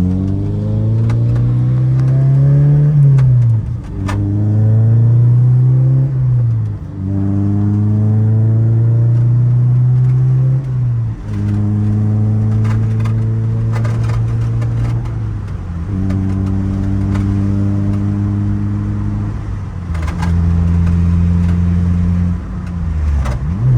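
Honda S2000's four-cylinder engine pulling through the gears: the engine note climbs, then falls back at each of several upshifts, holding a steadier pitch in the later gears.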